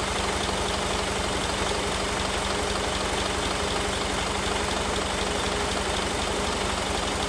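Mitsubishi Fuso Aero Ace tour bus's 6R10 inline-six diesel engine idling steadily, heard at the open rear engine compartment.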